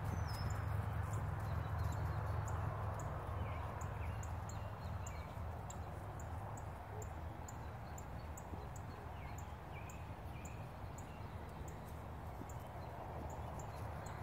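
Friesian-cross horse's hoofbeats at the canter on grass, dull and fading as the horse moves away. A few faint bird chirps come through.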